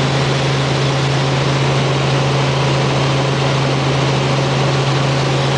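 Robinson R44 helicopter in level flight heard from inside the cabin: the steady drone of its six-cylinder Lycoming piston engine and rotors, a constant low hum under a loud even rush of noise.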